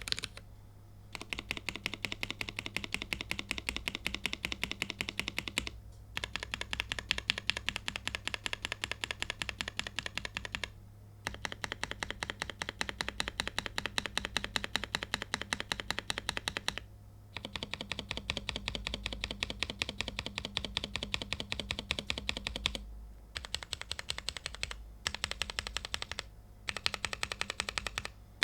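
Fast typing on a mechanical keyboard with lubed and filmed Cherry MX Black Hyperglide linear switches under POM keycaps: rapid, dense keystroke clicks in bursts of several seconds, broken by short pauses.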